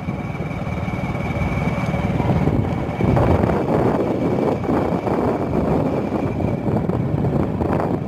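Floodwater of a swollen river rushing past, a loud steady rumble, with a faint steady high whine over it.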